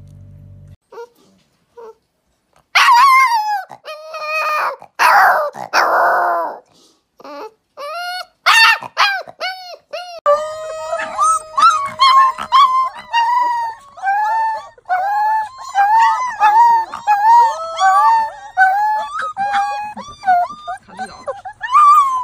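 Young puppies howling: high, wavering calls that rise and fall, starting a few seconds in and going on as a long run of short howls and yips, with one long held note partway through. A corgi puppy howls first, then a husky-type puppy.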